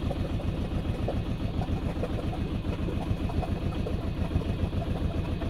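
A sailboat's engine running steadily at low speed, a rapid, even low pulsing, as the boat motors slowly up a creek.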